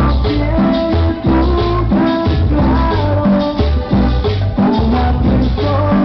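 Loud dance music played over a sonidero sound system, with a repeating bass line, a melody line and rattling hand percussion.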